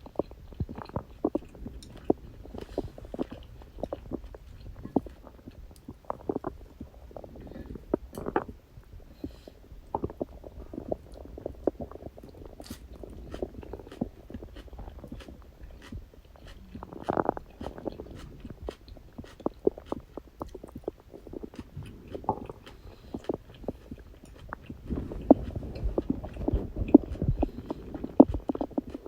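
Human stomach gurgling and growling in close-up: digestion sounds after a meal, made of irregular pops, bubbling and low rumbles. It swells briefly partway through and grows louder and busier near the end.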